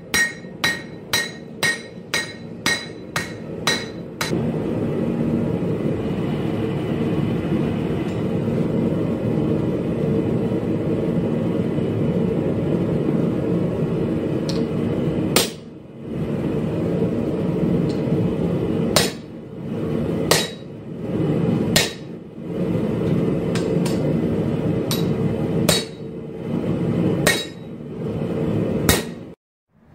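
Hand hammer striking a hot laminated 1084/15N20 steel blade on an anvil, the anvil ringing with each blow. A quick run of blows, about three a second, lasts about four seconds. Then a steady low rushing noise takes over, broken by single ringing strikes every second or two.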